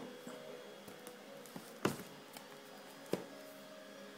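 Handling noise: two short knocks, about two and three seconds in, over a faint steady hum.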